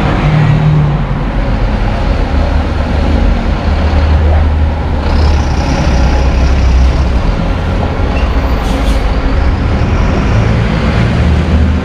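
City bus diesel engine running with a low drone as the bus pulls away and turns past. A higher hiss joins about five seconds in.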